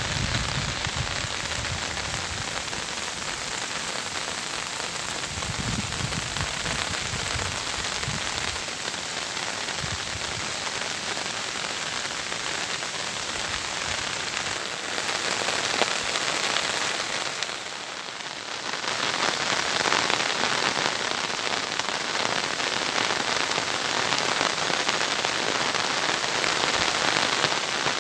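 Steady heavy rain falling, an even hiss of rain on leaves and ground, with a few low rumbles in the first eight seconds. It dips briefly about eighteen seconds in, then comes back a little louder.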